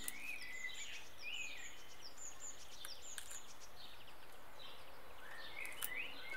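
Small birds chirping and twittering in quick repeated calls, with a few sharp snips of small scissors cutting green onion shoots.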